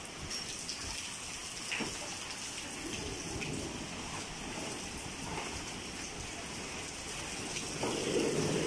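Typhoon rain falling steadily onto standing floodwater, growing a little louder near the end.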